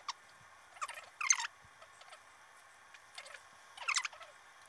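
Short bursts of soft squishing and crackling from hands handling a homemade kimchi dumpling: filling pressed onto the wrapper and the dough folded and pinched shut. The loudest burst comes about a second in, another near the end.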